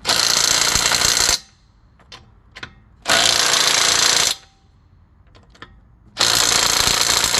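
Cordless impact wrench running wheel bolts in, three bursts of a second or more each with short pauses between, as the bolts are snugged down in a crisscross order.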